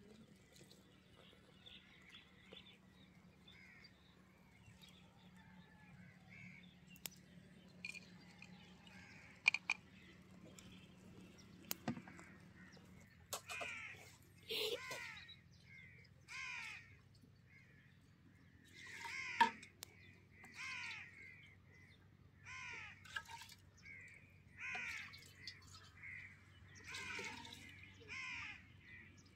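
Crows cawing again and again, one short call every second or so from about halfway through, with a few sharp clicks before them.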